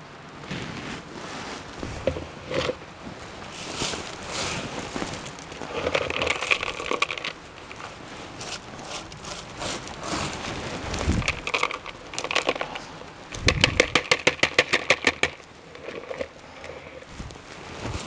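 Chunky orchid potting substrate being scooped by hand and worked into a plastic pot, crackling and scraping. Near the end comes a quick, even run of a dozen or so knocks lasting about two seconds.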